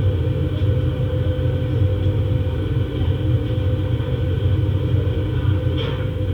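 Aircraft cabin noise: a steady, loud low rumble of jet engines and airflow with a constant hum above it.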